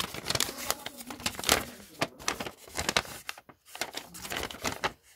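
Folded paper instruction leaflet being unfolded and flattened by hand: irregular crinkling and rustling of the paper.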